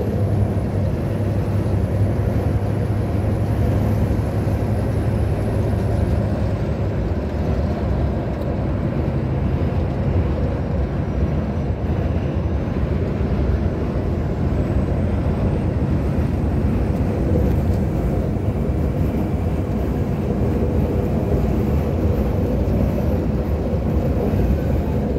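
Heavy truck on the move, its engine and road noise heard from inside the cab as a steady drone. The low hum is stronger for the first few seconds.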